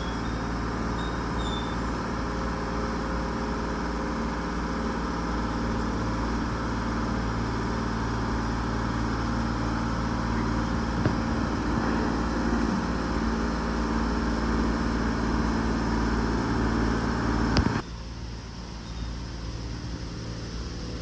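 Excavator engine running steadily as the machine travels slowly; about eighteen seconds in there is a sharp click and the sound drops suddenly and continues quieter.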